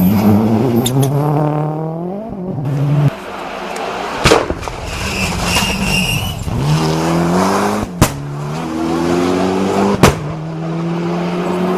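A rally car is driven hard on a stage. The engine note climbs and then drops at each gear change, with three sharp loud cracks about four, eight and ten seconds in, and a brief tyre squeal between the first two.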